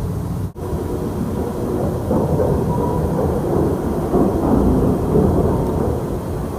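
A loud, deep rumble like thunder, with a brief dropout about half a second in and swelling from about two seconds in. It is one of the unexplained sky rumbles reported as 'strange sounds'.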